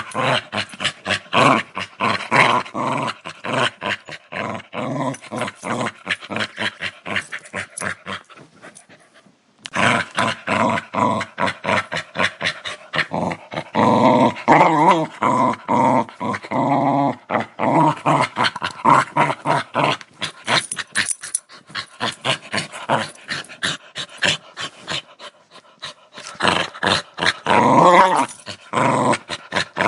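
A dog growling aggressively: a steady, rapidly pulsing rattle that breaks off for a moment about nine seconds in. Louder, more pitched growls come about halfway through and again near the end.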